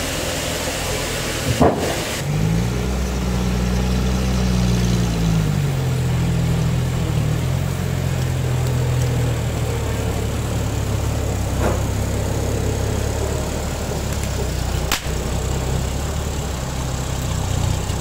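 Toyota forklift engine running under load, revving up about two seconds in, then settling back to a steady lower speed. A short sharp knock comes just before the rev.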